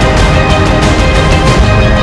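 Loud background music with a steady beat and sustained tones.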